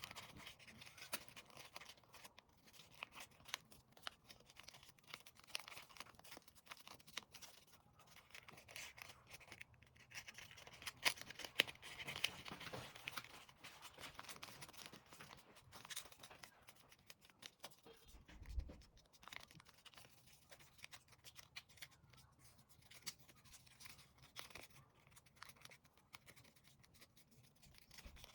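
Sheets of paper being folded and creased by hand: irregular soft rustles, scrapes and sharp little clicks as the paper is handled and pressed flat, with one dull low thump about two-thirds of the way through.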